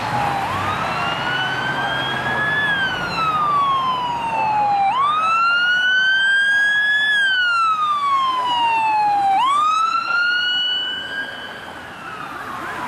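Emergency vehicle siren on wail, its pitch climbing and falling slowly through about three long cycles. It fades somewhat near the end as it passes.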